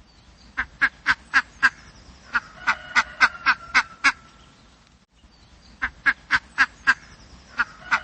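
Duck quacking in quick runs of short calls, several a second, with a pause of about a second midway.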